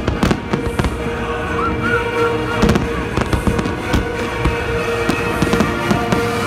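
Aerial fireworks shells bursting one after another, with dense crackling and many sharp bangs throughout.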